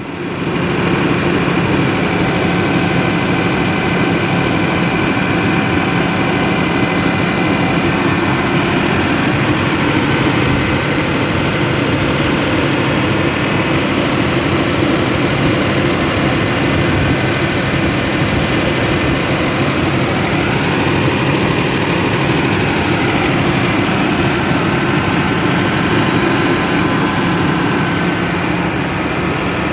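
Engine running steadily under load, its speed even and no longer hunting; it gets louder in the first second and then holds an even note.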